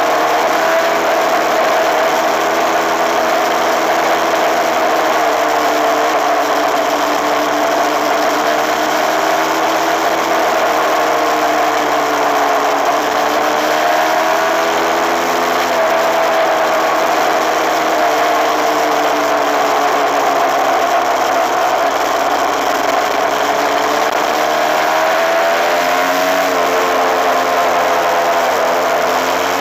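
Suzuki RMX250S 250cc two-stroke dirt bike engine running under way, loud and steady. Its pitch dips and climbs again about halfway through and rises once more near the end as engine speed changes.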